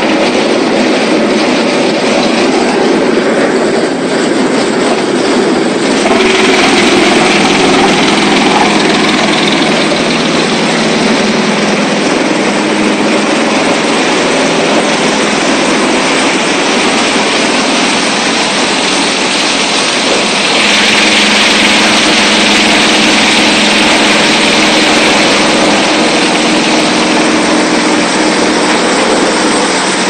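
Industrial chain-plate-fed wood chipper and its conveyors running, a loud steady mechanical din. The sound brightens and sharpens about six seconds in and again about twenty seconds in.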